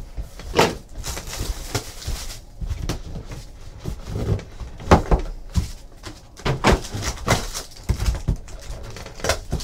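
Trading-card box being opened by hand: the cardboard lid sliding and lifting off, and packs being taken out, in short, irregular knocks, scrapes and rubs.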